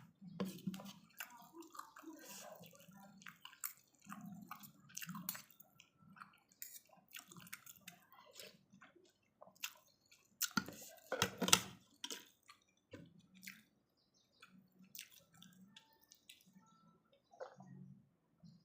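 Close-up eating of thick noodle soup: chewing and slurping, with many small wet clicks. There is a louder slurp about eleven seconds in.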